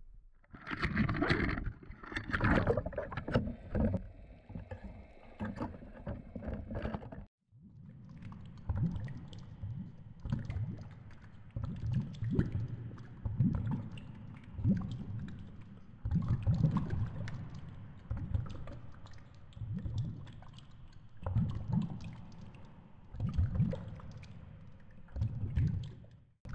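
Water sloshing and splashing around a GoPro camera hanging on a fishing line at the sea surface. After a brief break it gives way to the muffled low rushing of water against the underwater camera housing, surging and fading about once a second.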